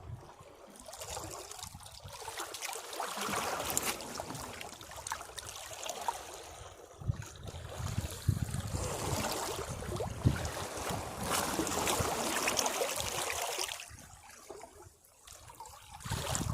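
Sea waves washing against rocks: a rush of water with many small crackles, building a few seconds in and dropping away near the end as another surge begins.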